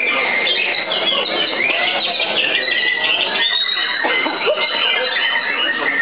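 White-rumped shamas (murai batu) singing in competition, many birds at once: a dense, unbroken chorus of quick whistles, trills and chirps that rise and fall.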